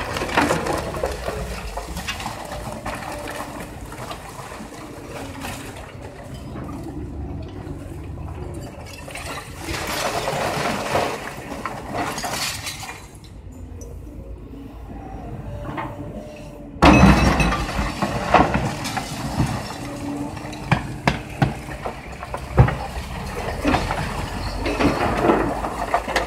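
Hydraulic excavator demolishing a brick wall: bricks and masonry crashing and rattling down onto rubble over the machine's engine running. A heavy collapse comes about two-thirds of the way in, and a run of sharp knocks near the end.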